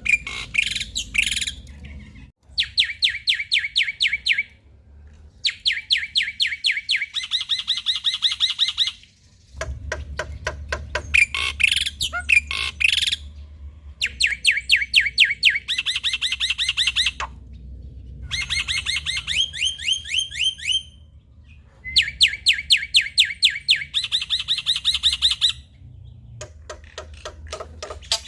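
Black-winged myna (jalak putih) singing: bursts of very fast, rattling note series, each a couple of seconds long, repeated over and over with short pauses, over a faint low hum.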